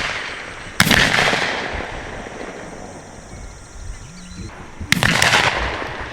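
Two shotgun shots from dove hunters, about four seconds apart, each fading away in a long echo.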